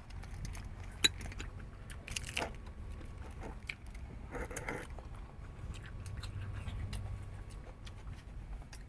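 Close-up eating sounds of someone chewing and biting into goat head: irregular wet clicks and crunches, with one sharp click about a second in, over a low steady hum.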